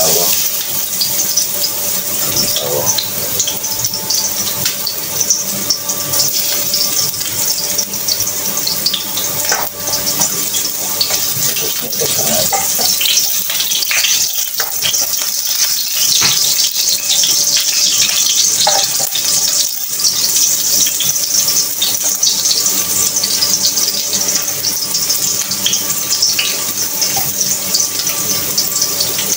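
Kitchen tap running steadily into a sink, with a few clinks and knocks of dishes.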